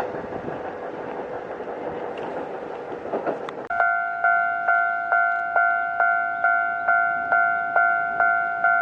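Train passing over the rails with a rushing wheel-and-rail noise, which cuts off abruptly about three and a half seconds in. A Japanese level crossing warning bell then rings steadily, about two strikes a second, each clang fading before the next.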